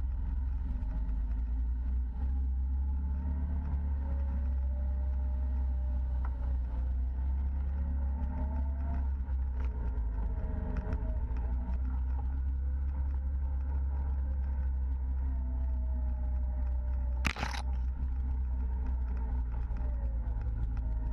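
Side-by-side UTV's engine running steadily under way, heard on board as a heavy low hum with a fainter whine that rises and falls in pitch. A single sharp knock sounds about seventeen seconds in.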